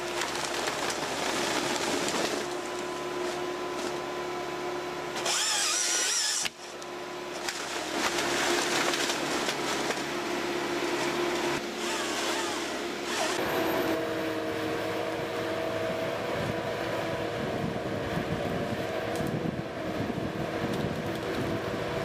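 Forestry machines at work: a timber harvester's engine and hydraulics running with a steady whine while the harvester head handles timber. The sound changes abruptly about six and thirteen seconds in as different machines take over.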